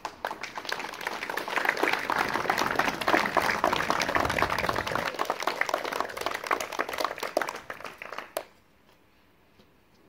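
Audience applauding: many hands clapping together, building over the first two seconds and stopping abruptly about eight seconds in.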